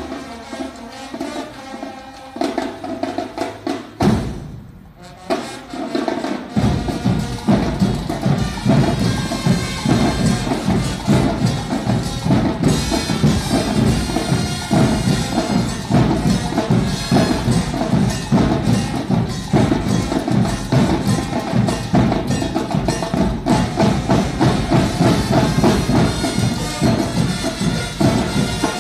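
Banda de guerra, a marching drum-and-bugle band, playing a march: quieter at first, then about six seconds in the drums come in full with a fast, steady beat under sustained notes.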